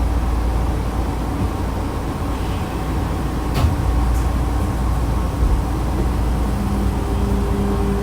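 Cabin sound of a Nankai 2000-series electric train: a steady low rumble with fan hiss and a single sharp click about three and a half seconds in. A steady electric hum from the traction equipment sets in near the end.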